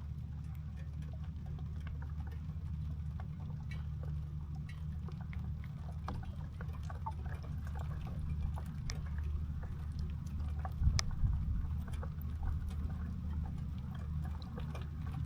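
Water around a bamboo raft: a steady low rumble with scattered light drips and taps, and a heavier knock about eleven seconds in.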